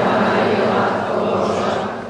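A church congregation singing together, many voices at once in unison.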